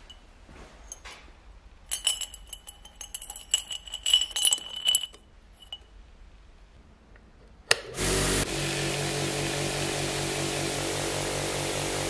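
Small metal parts rattle and clink against a glass jar for a few seconds. About eight seconds in there is a click, and a vibratory tumbler starts up, running with a steady hum and the constant hiss of its media churning.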